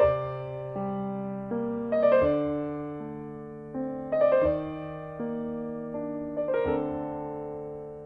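Background music: a slow, gentle piano piece, with quick rolled chords about every two seconds over held bass notes that ring and fade.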